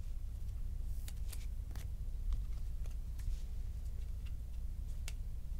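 Baseball cards and a clear plastic card sleeve being handled: a few light rustles and clicks, one sharper near the end, over a low steady hum.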